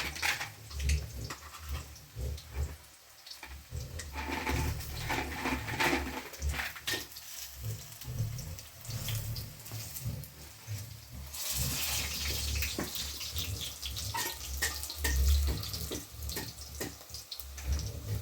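Water running and splashing, with irregular knocks and clatter of handling throughout and a heavier stretch of splashing past the middle.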